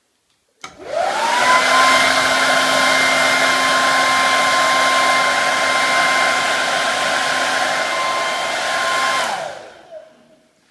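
Rowenta Studio Dry 2100 Elite hairdryer (CV5312) switched on with a click about a second in. Its motor whine rises quickly to a steady pitch over a loud rush of air and runs evenly. Near the end it is switched off, and the whine falls away as the motor winds down.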